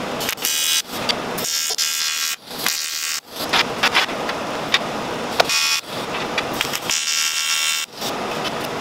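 TIG welding arc buzzing as short tack and bead runs are laid on a metal frame, the arc striking and cutting out several times.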